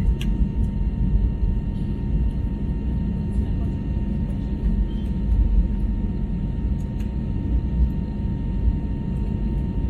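Airbus A321neo cabin noise during the climb: a steady low rumble of engines and airflow heard from inside the cabin, with a faint steady whine above it.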